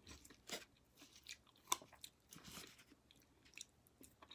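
Faint chewing of sugared grapefruit segments: soft, irregular wet mouth clicks and smacks.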